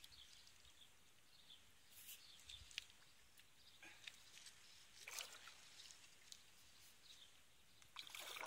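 Near silence: faint outdoor ambience with a few faint high chirps and short rustling noises, the loudest near the end.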